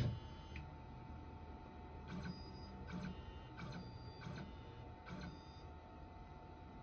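Onefinity CNC's stepper motors jogging the gantry in short moves: five brief whirring bursts about two-thirds of a second apart, after a single thump at the start.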